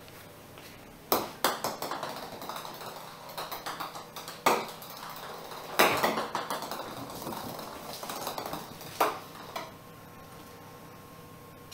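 Small hard ball clicking and bouncing across a tiled floor as kittens bat it about. Sharp taps come about a second in, again around four and a half and six seconds, and near nine seconds, with runs of quick light ticks in between as it skitters and rolls.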